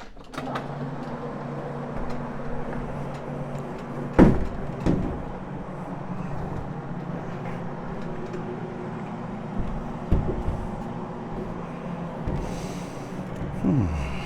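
Carpet cleaning machine starting up just after the start and running with a steady hum, with a few louder knocks over it.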